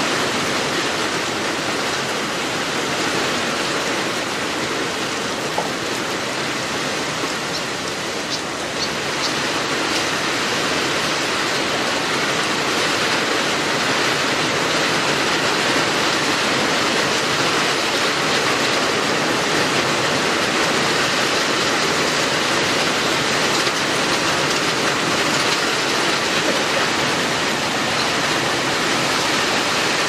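Heavy rain falling steadily, a dense even hiss of downpour.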